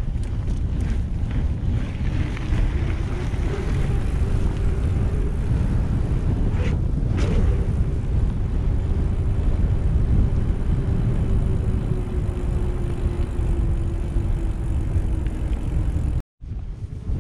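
Wind buffeting the microphone of a moving bicycle rider, a heavy steady rumble, with a faint hum underneath that slowly drops in pitch. The sound cuts out for a moment near the end.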